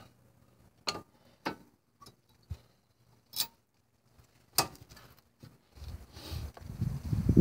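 Light, scattered clicks and taps, about six over five seconds, as a brake pad and its anti-rattle clip are worked into a 1995 Honda Civic's front caliper bracket. A low noise builds near the end.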